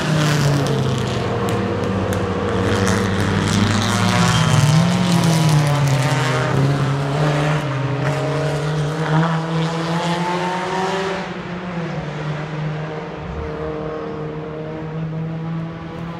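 Several vintage race car engines revving as the cars come through a corner and pass, their pitch rising and falling as they accelerate and shift. About eleven seconds in they fade away, leaving a steadier engine note running further off.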